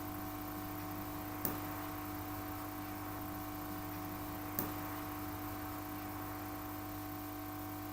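Steady low hum with two faint sharp clicks, about a second and a half in and again about three seconds later.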